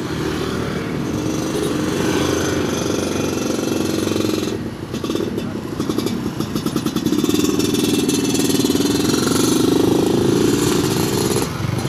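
Small motorcycle and scooter engines running at close range. About halfway through, an engine putters with an even, pulsing beat, and a motorbike engine is loudest and steady for the last few seconds as it passes right by.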